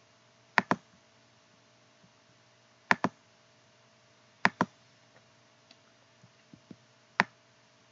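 Computer mouse button clicking: three quick pairs of clicks and one single click, as wires are placed in a schematic editor.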